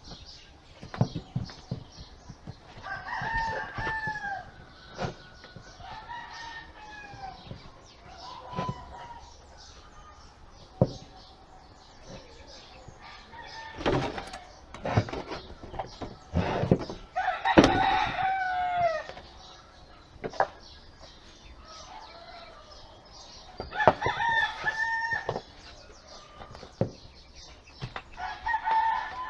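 Rooster crowing about six times, each a long call falling at its end, the loudest about two-thirds of the way in. Scattered sharp knocks and taps run between the crows.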